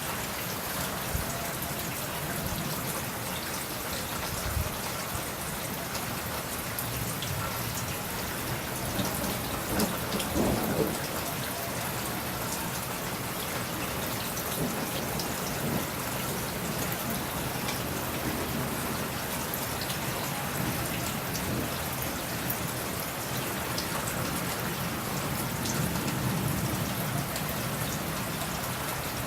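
Steady rain falling, with many sharp drop ticks close to the microphone and a brief louder low swell about ten seconds in.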